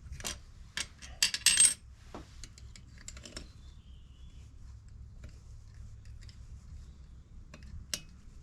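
Small metal tools and parts clinking together in a quick cluster of sharp clinks with a brief high ring, about a second in, followed by a few faint ticks of handling and one more click near the end. A low steady hum lies underneath.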